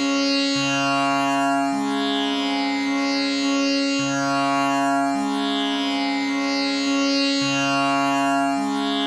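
Tanpura drone tuned to C#, its strings plucked in a slow repeating cycle so that a new low note sounds about once a second over a constant, dense shimmer of overtones.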